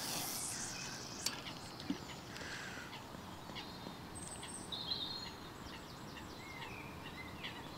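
A fishing rod cast: a brief rush of line leaving the reel at the start, then a single click about a second in. After that, a quiet lakeside background with small birds chirping.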